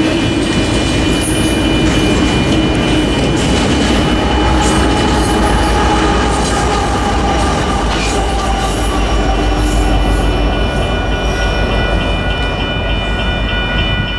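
A train rolling past on the rails: steady loud rumble and rail noise of the cars, with a thin high-pitched squeal held throughout.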